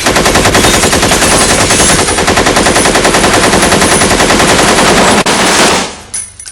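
Machine gun sound effect from a film: a long, loud, sustained burst of rapid automatic fire that stops about six seconds in, followed by a few faint metallic clinks.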